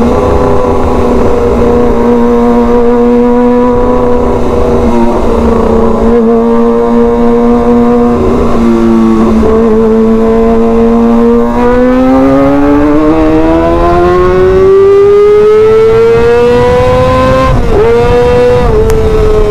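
Kawasaki ZX-25R's 250 cc inline-four, through an SC Project titanium aftermarket exhaust, running loud at steady revs while riding. About halfway through it revs up steadily for several seconds, dips briefly as it shifts gear near the end, and pulls on at high revs.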